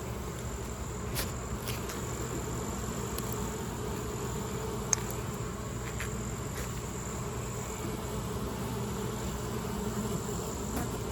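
Honeybees buzzing steadily in a dense hum of many bees around an opened hive, with a few faint clicks.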